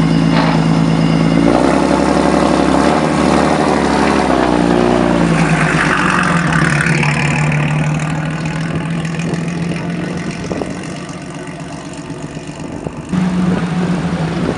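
1928 Mercedes-Benz SSK's supercharged straight-six engine running as the car pulls away, its pitch shifting about a second and a half in and again around five seconds. It then fades as the car drives off, and near the end it cuts abruptly to the engine running louder and close by.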